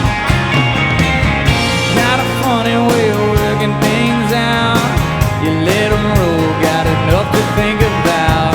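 A rock band playing a song: steady drums and bass under a melodic lead line that slides and bends in pitch.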